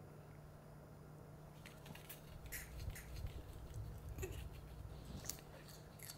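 Small Pomeranian crunching pieces of raw cucumber: faint, irregular crisp clicks starting a little over a second in.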